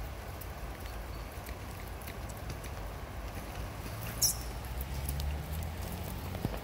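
Low, steady rumble of an approaching ER2M 3000-volt DC electric commuter train, growing a little after about four seconds, with small faint ticks throughout. One short, high squeak about four seconds in is the loudest sound.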